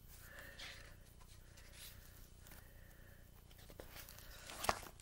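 Faint paper rustling as the pages of a large hardcover picture book are handled and turned, with one sharper page flap near the end.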